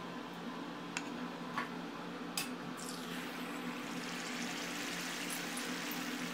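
Hot oil in a cast-iron kadai sizzling as a batter-dipped beef and potato bonda fries. The sizzle begins about three seconds in and grows steadily. A few light clicks come before it.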